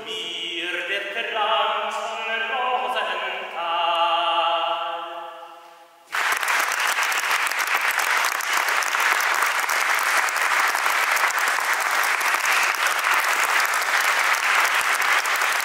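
Male voices singing early polyphony, fading out about five seconds in. About six seconds in, audience applause starts abruptly and continues steadily.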